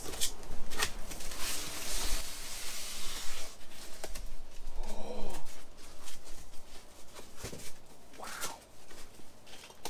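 Cardboard boxes and styrofoam packing being handled: rustling and scraping with several sharp knocks. A bird calls briefly about halfway through.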